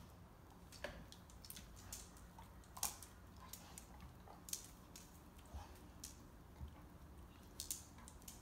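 Faint, scattered clicks and scuffs of a pit bull and a puppy play-wrestling on a tile floor, with soft mouthing and chewing at the puppy.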